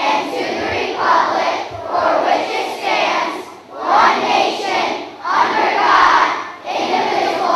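A large group of schoolchildren reciting the Pledge of Allegiance in unison, in short phrases with brief pauses between them.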